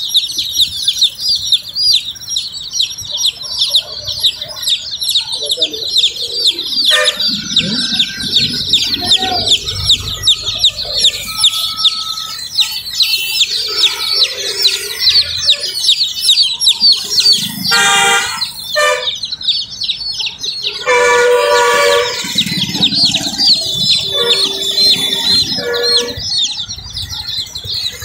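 A flock of baby chicks peeping constantly, many rapid high chirps overlapping. A vehicle horn honks briefly a little past halfway, then again for longer a few seconds later.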